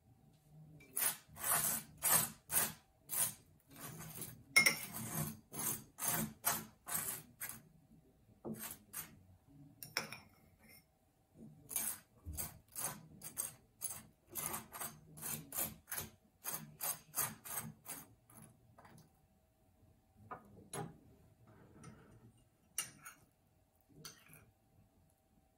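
Table knife scraping butter across thick toast: quick dry strokes, about two a second, with a short lull about a third of the way through. Near the end come softer scrapes and clicks as marmalade is spooned from a small bowl.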